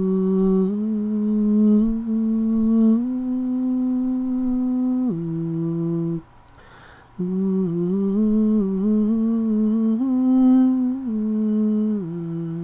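A single voice humming a slow wordless tune, holding each note and stepping up and down between pitches, with a brief pause about six seconds in.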